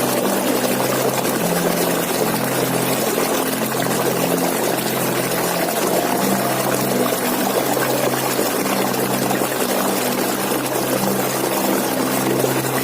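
Waterfall, water falling steadily in an even hiss, with faint low steady tones underneath.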